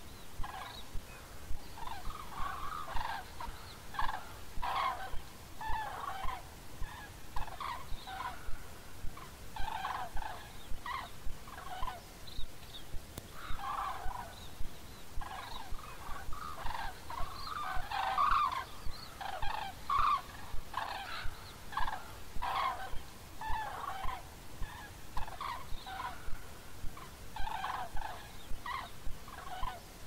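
A flock of cranes calling in flight: many short, rolling bugling calls overlapping one after another, with no pause.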